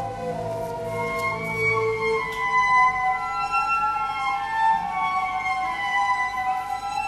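Slow, haunting cello music: long held notes played high on the instrument, with a low held note beneath that drops out about two seconds in.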